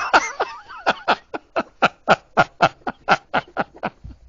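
A man's laugh, a long run of short rapid 'ha' pulses at about four to five a second that die away near the end: one of the canned laugh effects built into the Loquendo TTS 'Kerem' Turkish voice.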